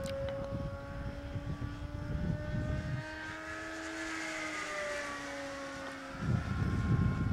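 Engine of a radio-controlled P-51 Mustang model plane droning steadily overhead. Its pitch rises a little and then drops about halfway through as the plane passes. Wind buffets the microphone at the start and again near the end.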